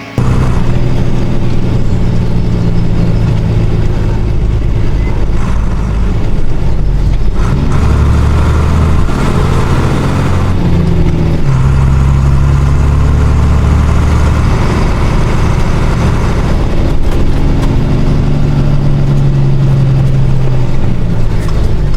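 Loud engine running, its pitch stepping up and down every few seconds, cutting in suddenly at the start.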